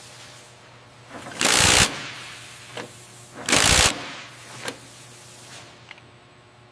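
Wrenches tightening the bolts of an aircraft engine's pylon mounting point: two loud half-second bursts of tool noise about two seconds apart, with a few fainter clicks after them over a low steady hum.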